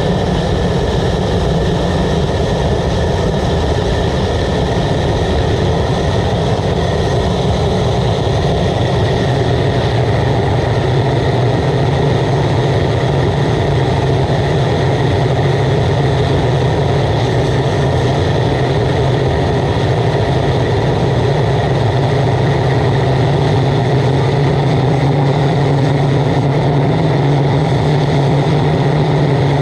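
Waste oil burner firing steadily: a loud, even rushing noise of flame and forced air with a few constant high tones over it and a low hum that grows a little stronger about nine seconds in.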